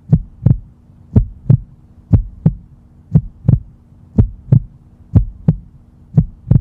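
Heartbeat sound effect: paired low thumps, lub-dub, about once a second, with a faint steady hum beneath.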